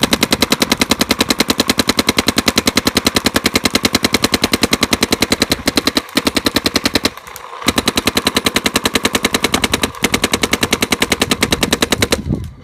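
Planet Eclipse Dark Geo 2 electronic paintball marker firing in a long rapid string, roughly a dozen shots a second. There is a short break about seven seconds in, and it stops just before the end as the pod runs dry.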